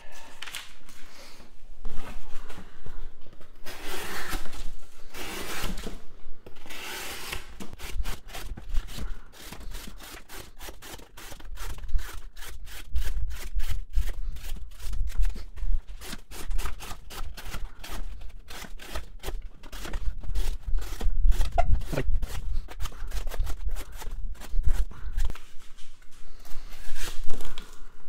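Kansept Model 6 folding knife slicing strips off a sheet of cardboard, each cut a short rasping scrape of steel through corrugated board. A few longer drawn cuts come first, then a quick run of short cuts, several a second.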